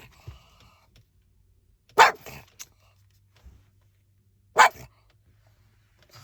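A pug barking twice, single barks about two and a half seconds apart.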